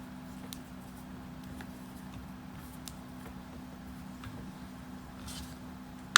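Faint, scattered ticks and clicks of a hand tool working a skateboard wheel's axle nut, over a steady low hum, ending in one sharp, loud click.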